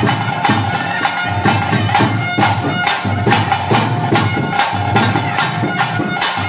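Traditional ritual music: a reedy wind instrument holds a steady, drone-like tone over drums struck in a fast, even beat of about four strokes a second.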